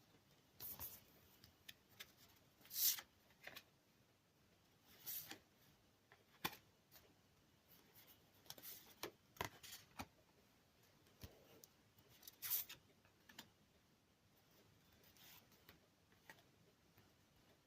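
Soft, scattered rustles and clicks of a comic book and its packaging being handled, about a dozen brief noises with quiet between them; the loudest comes about three seconds in.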